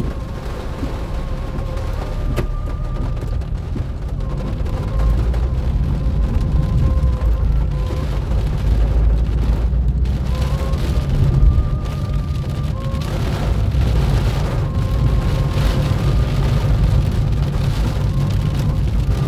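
Car cabin noise while driving on wet city streets in the rain: a steady low rumble of engine and tyres that gets louder about five seconds in, with a faint steady tone above it.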